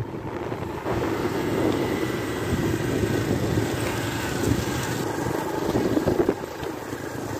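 Motorcycle engine running while riding along a dirt road, a steady rumble mixed with wind rushing over the microphone. It dips a little about six seconds in.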